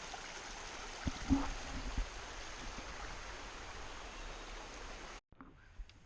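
Mountain stream running, a steady hiss of flowing water, with a few low knocks about a second in. The water sound cuts off suddenly about five seconds in.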